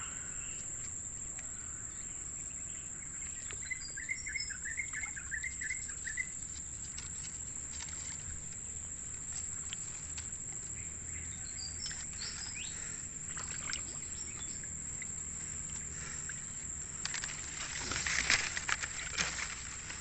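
Swamp ambience: a steady high insect drone with a bird's short chirping phrases, then leafy vegetation rustling and crackling near the end as it is pushed aside.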